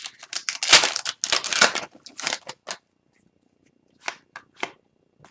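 Wrapper of a hockey card pack being torn open and crinkled: a run of rough tearing and crackling for about two and a half seconds, then a few light taps a second or so later.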